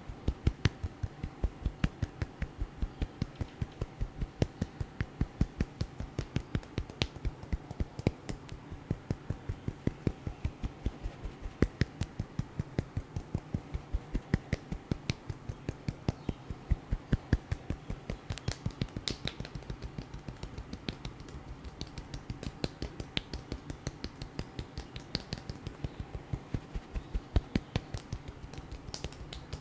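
Rapid, evenly paced percussive hand strikes of a head massage, a quick steady rhythm of sharp slaps kept up without a break.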